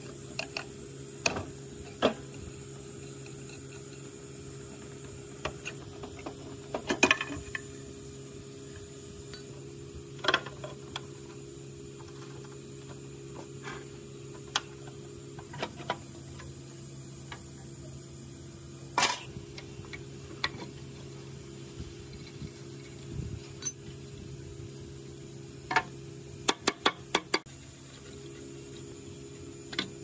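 Wrench and plastic air-conditioner blower parts being worked and handled: scattered sharp clicks and clanks, with a quick run of clicks near the end, over a steady faint hum.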